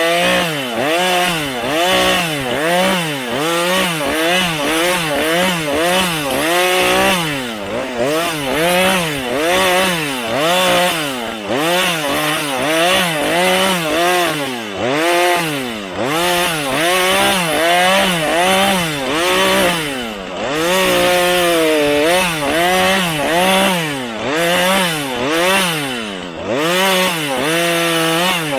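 Husqvarna 435 two-stroke chainsaw cutting wood. The engine pitch rises and falls about once a second as it works through the cut.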